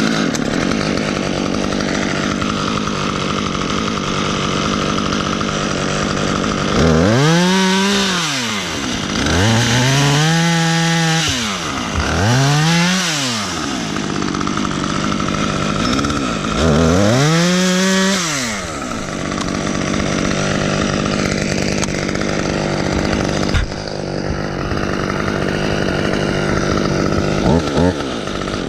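Two-stroke top-handle chainsaw, a Husqvarna T540XP, running steadily and revved up and down about four or five times in the middle, each time rising in pitch and falling back. It starts abruptly and stops at the end.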